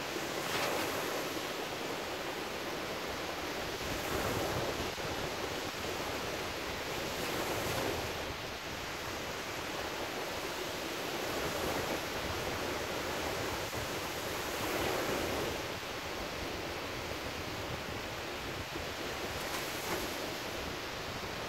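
Small surf breaking on a sandy beach: a steady wash of noise that swells each time a wave breaks, about every three to four seconds.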